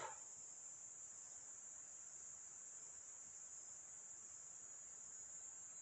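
Near silence: faint room tone with a steady, thin high-pitched whine.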